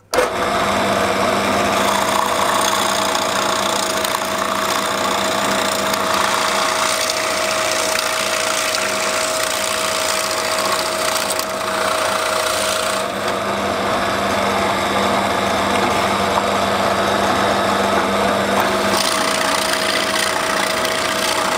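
Pillar drill running with a Forstner bit boring into wood: a steady motor tone under the continuous scraping of the cut.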